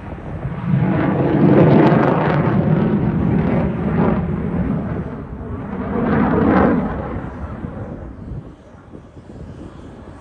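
Boeing F-15QA fighter's twin jet engines roaring through a display pass. The noise swells twice, near two and six seconds in, then fades away.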